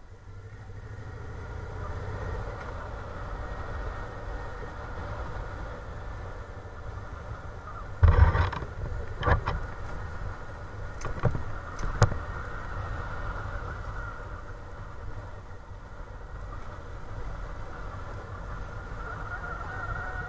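Motorcycle engine running at low road speed with wind rumbling on the microphone. A cluster of loud knocks and rattles comes about halfway through.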